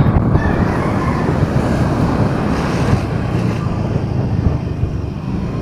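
Steady road and traffic noise from a vehicle on the move through city streets, with wind buffeting the microphone.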